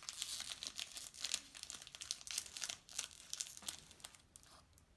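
Plastic packaging of an L.O.L. Surprise doll crinkling and rustling in irregular crackles as it is handled and opened.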